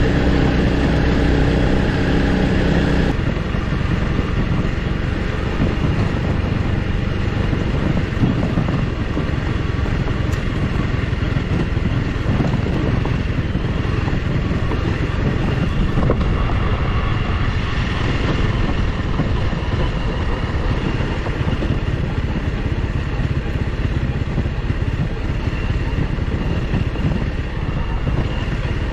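Honda CRF300L Rally's single-cylinder engine running as the bike rides along a dirt track, with tyre and road noise. The engine note drops about three seconds in, and the bike goes on at a slower, steady pace.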